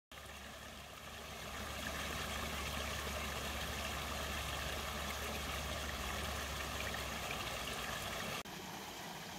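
Stream water running and splashing over and between the boulders of a small rock weir, a steady rushing with a low rumble underneath. It becomes slightly quieter about eight and a half seconds in.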